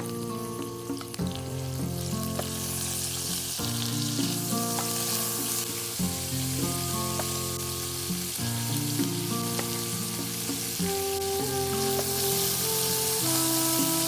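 Food sizzling as it fries in hot oil in a pan, the sizzle growing louder a couple of seconds in, under background music of sustained chords.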